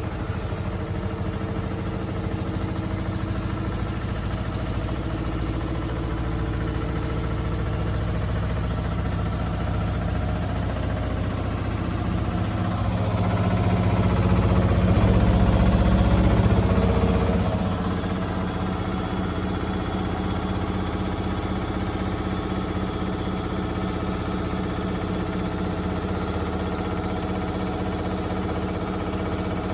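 Indesit IWD61450 washing machine in its final spin, the drum motor's high whine rising slowly in pitch as the drum gathers speed. About halfway through, a low rumbling vibration builds, peaks and dies away after a few seconds, then the spin runs on steadily.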